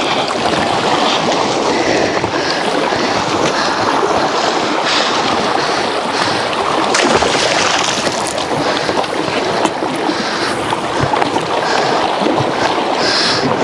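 Wind buffeting the microphone and choppy water slapping against a small inflatable PVC boat, a steady rushing noise with a few scattered knocks.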